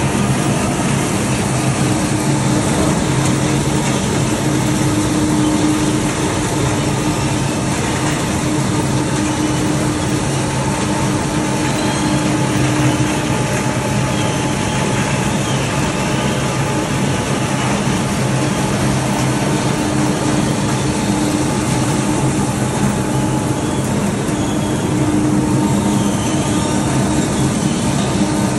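Heavy harvesting machinery running steadily: a constant engine drone with a dense mechanical rush and a few unchanging hum tones.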